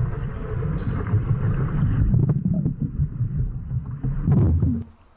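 Underwater churning of water and bubbles from a swimmer's fast freestyle flutter kick passing close to an underwater camera, a loud, rough low rumble that cuts off suddenly near the end.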